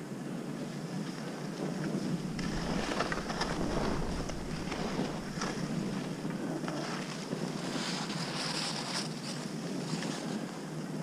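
Wind rushing over the microphone of a moving skier, with skis hissing and scraping over snow in repeated short scrapes.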